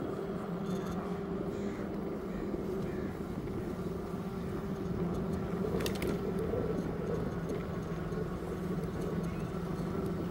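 A steady engine hum over a background hiss, its pitch stepping down slightly about halfway through, with a short click near the middle.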